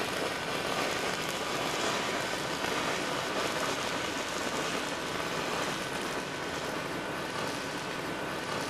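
Electric arc gouging of a cast iron brake rotor with a 700-GR gouging electrode, whose coating blows the molten metal out without compressed air: a steady crackling hiss as the arc cuts a groove, with a faint thin whistle underneath.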